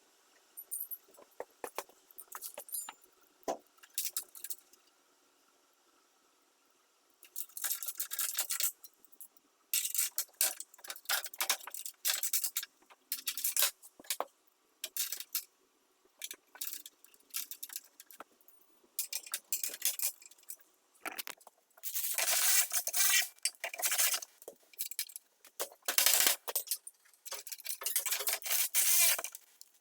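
Hand tools and small metal parts clinking and scraping in irregular bursts of rapid clicks, with a quiet gap a few seconds in, as the snowblower is bolted back together.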